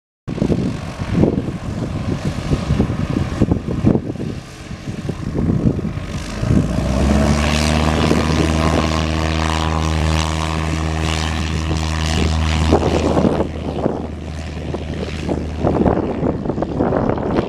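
1970 Cessna 172K Skyhawk's four-cylinder Lycoming O-320 engine and propeller running at taxi power as the plane taxis close past, a steady drone that is loudest in the middle stretch. Gusty wind buffets the microphone before and after it.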